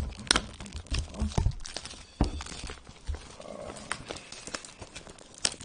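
Plastic shrink-wrap film crinkling and crackling as hands tear and peel it off a cardboard box, in irregular sharp crackles, the loudest just after the start and near the end.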